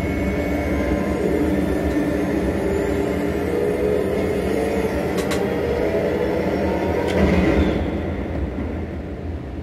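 Animated sound effect of hovering VTOL airships: a steady engine drone with a drifting whine, with two sharp cracks about two seconds apart before it fades near the end.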